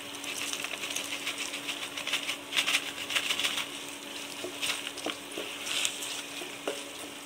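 Spice powder rustling and pattering as it is shaken from a foil packet into a steel kadai, then a wooden spatula stirring and scraping through fried peanuts, with a few knocks against the pan in the second half. A steady low hum sits underneath, from the induction cooktop.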